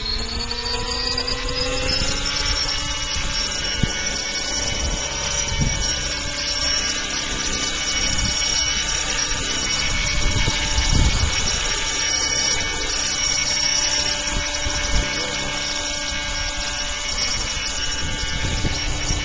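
Electric motor and main rotor of a large electric-converted RC helicopter. Its whine rises in pitch for the first two seconds or so as the head spools up, then holds a steady pitch while the helicopter hovers low. Wind rumbles on the microphone in gusts.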